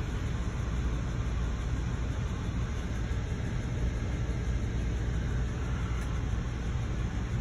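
Steady low rumble inside an Amtrak Silver Star passenger coach as the train moves slowly along a station platform.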